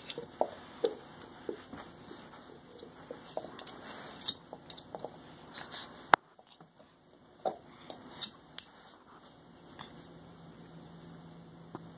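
A pit bull gnawing a chew bone: irregular clicks, scrapes and knocks of teeth on the bone, with one sharp click about six seconds in.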